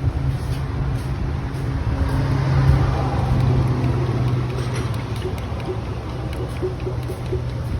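Car engine running steadily with a low hum.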